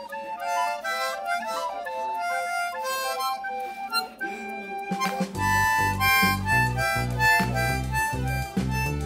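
Harmonica playing a melody of quick stepping notes. About five seconds in, a bass line and a steady beat join it as backing music.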